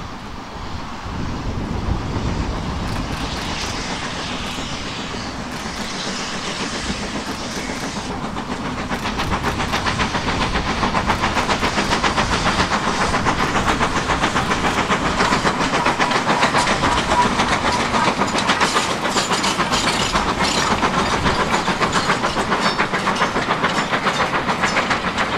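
Two steam locomotives double-heading a passenger train, working with heavy exhaust as they come past, then the coaches rolling by. From about ten seconds in it grows louder into a fast, continuous clatter of wheels over the rails.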